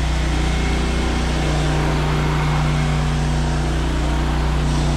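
Pressure washer engine running steadily with an even drone, with the hiss of the spray gun applying softwash solution to the house.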